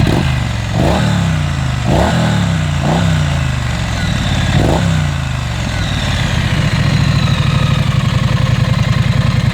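Triumph Street Scrambler 900's 900 cc twin-cylinder engine, through its twin exhausts, revved in four quick throttle blips over the first five seconds, each rising sharply and falling back, then settling into a steady idle.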